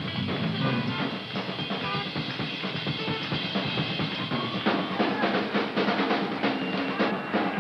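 Live funk-rock band playing with the drum kit to the fore; a little past halfway the drumming turns into a dense run of fast hits, with held notes ringing over it.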